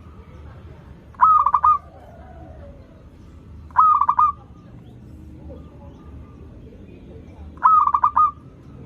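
Zebra dove (perkutut) singing: three cooing phrases a few seconds apart, each a quick run of four or five clipped notes.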